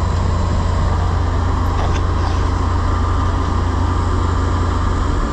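International 1460 combine running steadily while harvesting soybeans: a constant low engine drone with the hum of the threshing machinery over it.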